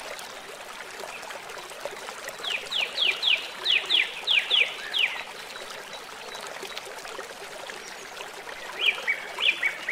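A bird calling over a steady background hiss: a quick run of about nine down-slurred notes a few seconds in, then a series of repeated notes starting near the end.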